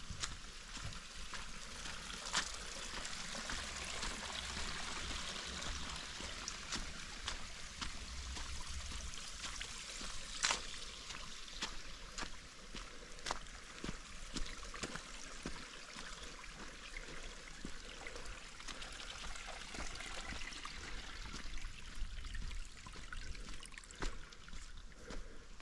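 Steady trickling of a small stream, with the walker's footsteps on the trail as short clicks about once a second.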